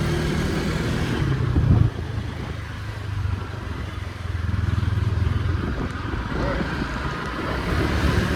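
Motor scooter engine running during a ride, with wind noise across the microphone and a brief louder knock about two seconds in.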